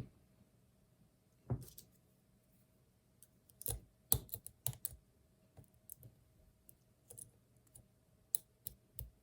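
Lock picks and a tension wrench clicking and tapping in the keyway of a Master Lock Magnum padlock during a speed-picking attempt: scattered sharp clicks at irregular intervals, busiest about halfway through.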